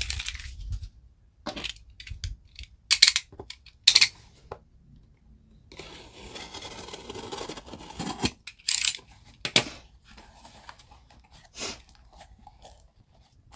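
Box cutter slitting the packing tape on a cardboard box: a series of short, sharp tearing strokes with a longer scraping stretch in the middle, then the cardboard flaps being pulled open.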